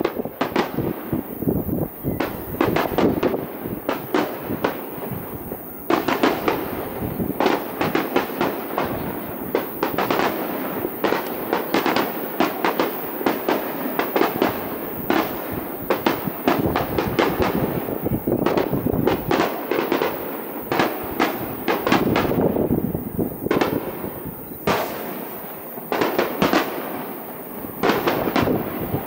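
Aerial fireworks bursting one after another, with many sharp cracks and bangs in quick succession and only brief lulls.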